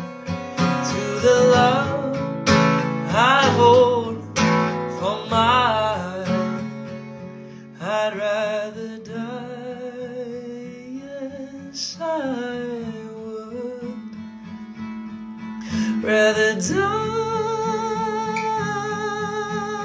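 A man singing with acoustic guitar accompaniment: long high notes with a wide vibrato, with quick swooping vocal runs in the first few seconds and another long held note from about two-thirds of the way in.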